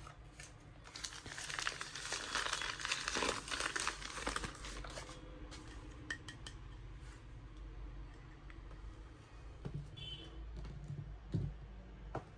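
Packaging crinkling as it is unwrapped by hand. The crinkling is densest in the first few seconds, then thins to scattered small clicks, with a few light knocks near the end.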